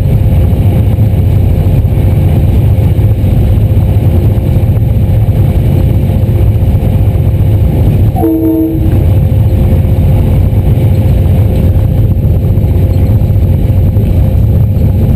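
A train running with a loud, steady low rumble and a constant whine. About eight seconds in, a short horn blast of several notes together sounds briefly.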